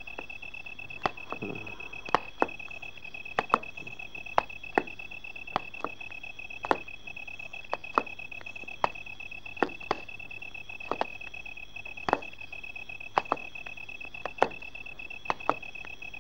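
Irregular sharp clicks or ticks, about one or two a second, over a steady high-pitched whine.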